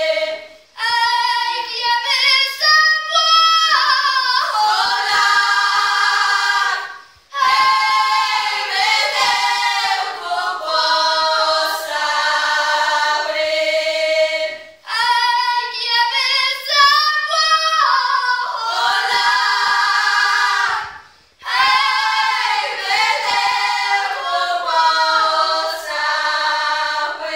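Group of young women singing a Polish highland (góralski) folk song a cappella in several voices, loud and high. It comes in four phrases of about six seconds each, every one ending on a held note, with a short break for breath between them.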